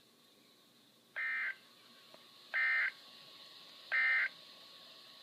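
Emergency Alert System end-of-message signal from NOAA Weather Radio: three short bursts of buzzy, warbling SAME data tones, about a second and a half apart, marking the end of the alert. A faint steady hiss lies underneath.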